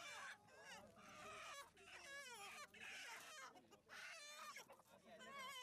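Chickens clucking and cackling faintly, a run of short calls one after another.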